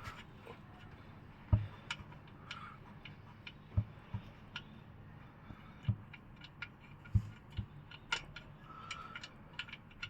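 Faint, irregular ticks and soft knocks, about one or two a second and unevenly spaced: the last of the old engine oil dripping from the open drain hole of the oil pan into a catch container.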